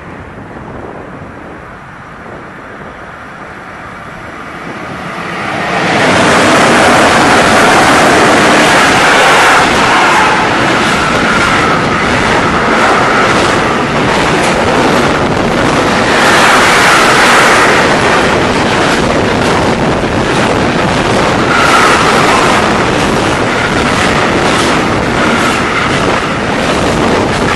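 Freight train passing close by at speed: the wagons of a container train with tank containers run past with a steady loud rush and rattle of wheels on rail. The noise rises sharply about six seconds in, after a few quieter seconds.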